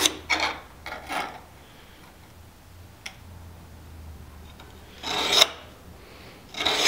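A steel scribe scratching lines across a thin steel plate to mark it out, in several short strokes, the loudest about five seconds in.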